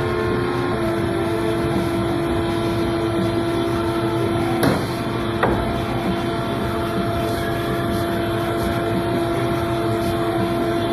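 Ercolina GB100SCNC5 hydraulic CNC mandrel bender running while bending 3-inch square tube: the hydraulic power unit gives a steady, even-pitched hum, with two sharp metallic knocks about a second apart midway through.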